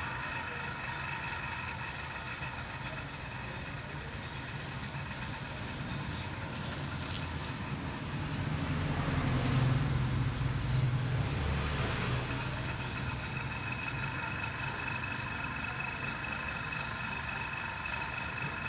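Steady outdoor road-traffic noise with a faint steady high whine underneath. A low hum swells and fades about eight to twelve seconds in, and a short hiss comes about five to seven seconds in.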